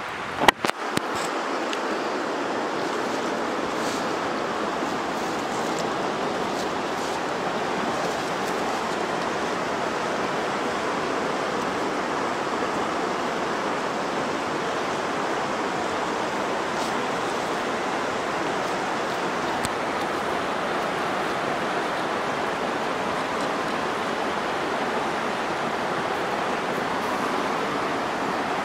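Steady rush of flowing river water, with a few sharp clicks about half a second in.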